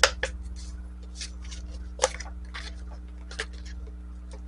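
Hands working a plastic soda bottle and heating element with a hot glue gun: a few scattered sharp clicks and taps, the loudest at the start and about two seconds in, over a steady low hum.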